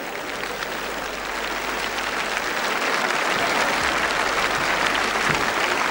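Audience applauding, the clapping swelling steadily louder.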